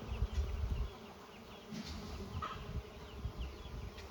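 Honeybees buzzing around the hive entrance, a steady hum from many bees flying in and out. Low rumbling bumps on the microphone are loudest in the first second.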